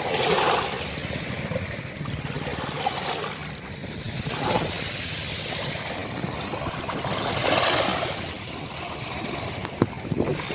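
Small waves washing up on a sandy beach and drawing back, swelling just at the start and again around seven to eight seconds in. A brief sharp click comes near the end.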